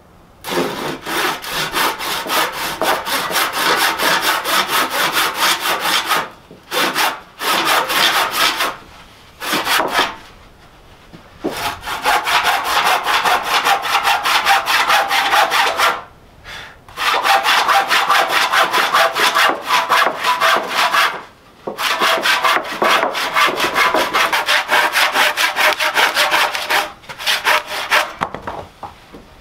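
Hand saw cutting across a wooden board, fast back-and-forth strokes in several runs broken by short pauses.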